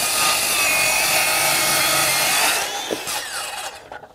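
Ryobi One+ HP 18V brushless 7-1/4-inch circular saw cutting through a wooden board. The cutting noise stops about two and a half seconds in as the blade clears the board, and the motor then winds down with a falling whine.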